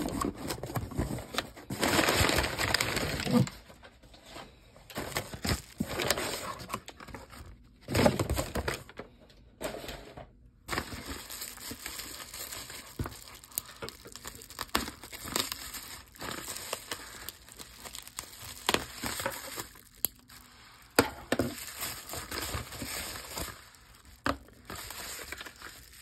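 Packing paper crinkling and cardboard scraping as a parcel is unpacked, densest in the first few seconds. After that come intermittent rustles and small crackles of plastic bubble wrap being handled and opened.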